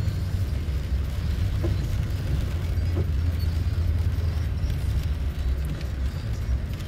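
Steady low rumble of a car on a wet freeway, heard from inside the cabin: engine and tyres on rain-soaked pavement.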